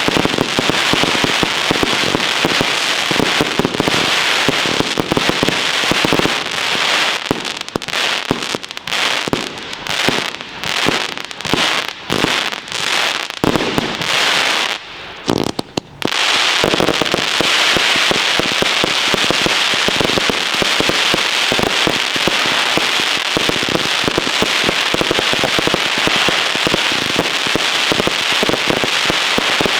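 Consumer firework batteries firing: dense rapid crackling and popping, which thins into separate bursts for several seconds, drops away briefly about halfway, then comes back as continuous dense crackling when the next batteries start.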